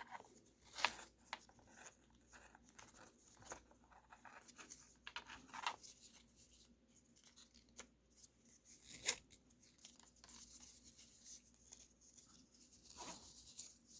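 A stiff nylon NATO strap being threaded through a watch's lugs and buckle: scattered rustles, scrapes and light clicks, the loudest about nine seconds in.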